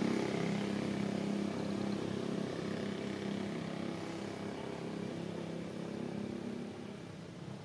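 An engine's steady low drone, slowly fading.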